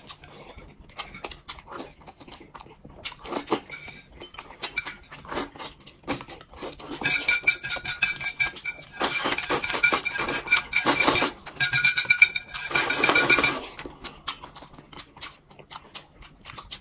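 Close-up mukbang eating sounds from two people eating dumplings and fried eggs: wet chewing and lip-smacking, with small clicks of chopsticks against bowl and plate. From about seven to thirteen seconds in comes a louder stretch of hissing slurps with a whistle-like edge.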